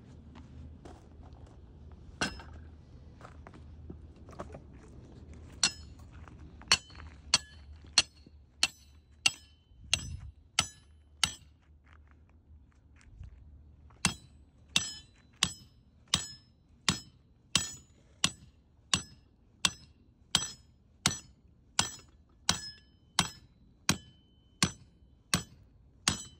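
Hammer striking a steel drive pin in a steady rhythm of sharp, ringing metal-on-metal clinks, about one and a half blows a second, with a short pause partway through. This is the pin being driven into the footing soil to make the hole for a nuclear density gauge's probe.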